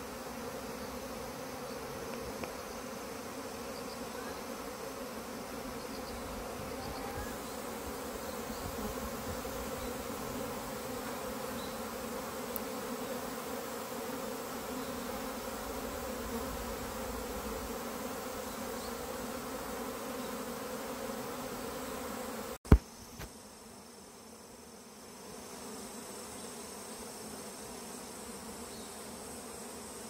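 A swarm of honeybees in flight: the steady hum of thousands of bees leaving their hives together. The colony is swarming because, the beekeeper believes, a new queen has emerged. About three-quarters of the way through comes one sharp click, and after it the hum is fainter.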